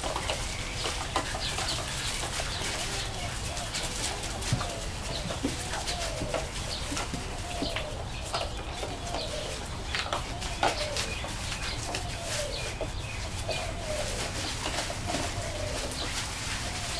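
Young pointer puppies scuffling and tugging at a toy in loose wood shavings, with light clicks and rustling, while a short rising-and-falling animal call repeats about once a second.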